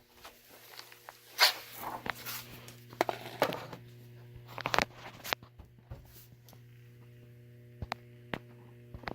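Scattered light clicks, knocks and rustles from handling, the loudest about a second and a half in, over a steady low electrical hum.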